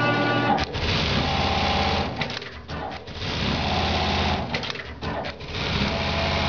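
Brother BAS-342GXL programmable pattern sewing machine stitching at speed, with two short breaks in the run, marked by sharp clicks, about two seconds in and again about five seconds in.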